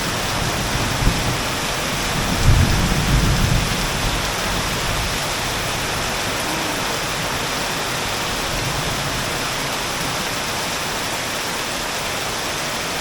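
Torrential rain pouring down, a steady dense hiss, with a low rumble of thunder about two and a half seconds in.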